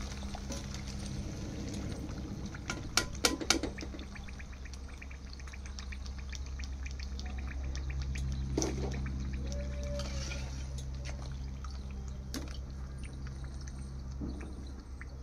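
Golgappa puris deep-frying in hot oil in a metal pan: the oil sizzles and crackles steadily. A slotted steel spatula clinks against the pan, in a quick cluster about three seconds in and once or twice more later, over a steady low hum.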